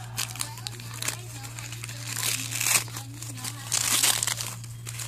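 Wrapping paper being crumpled and torn by hand, in irregular rustling bursts that are loudest about two and four seconds in.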